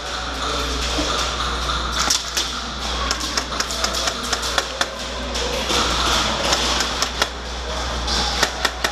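Irregular sharp clicks and snaps of airsoft guns firing and BBs striking, over a steady low rumble.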